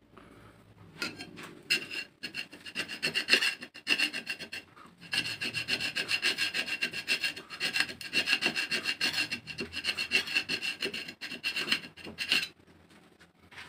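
Metal scraping hard against a hardened spring-steel knife blade in rapid back-and-forth strokes, with a thin metallic ring, during a hardness test of the blade's temper. The strokes start scattered and grow fast and steady about five seconds in, then stop shortly before the end.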